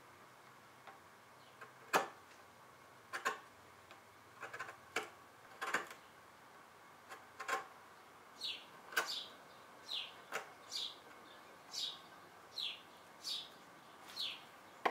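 A knife paring a small walnut plug by hand, heard as a few sharp clicks and scrapes in the first half. From about halfway in, a bird calls over it with short high chirps, about one a second.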